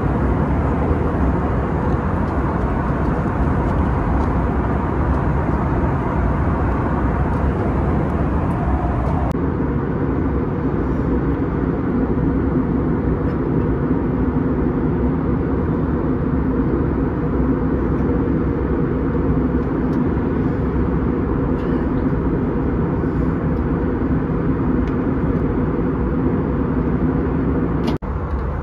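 Steady cabin noise of an Airbus A321 airliner in flight, heard from a window seat: the engines' drone and the rush of air over the fuselage, with a low steady hum running through it.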